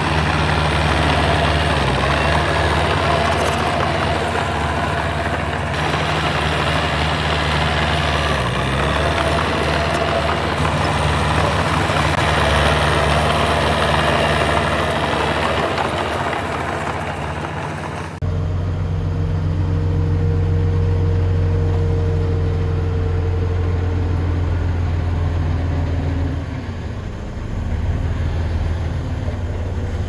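Small bulldozer's diesel engine running under load as it pushes a pile of soil and rocks, with a broad grinding noise over the engine. Just past halfway the sound changes abruptly to a dump truck's diesel engine running steadily and lower, with a faint whine for several seconds as it tips its load.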